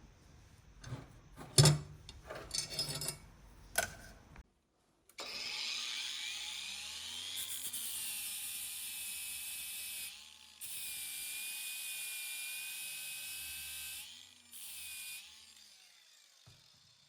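A few handling clicks and knocks, then a small electric power tool's motor spins up to a high-pitched whine and runs steadily. It stops briefly, runs for a few seconds more, and ends with one short burst.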